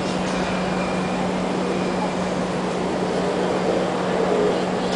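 SMRT C151 metro train standing at the platform just after arriving, its running equipment giving a steady hum: a low steady tone over an even rushing noise.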